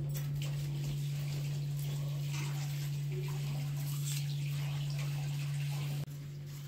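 A steady low hum throughout, with faint scrapes and crackles of small knives cutting and peeling onion skins.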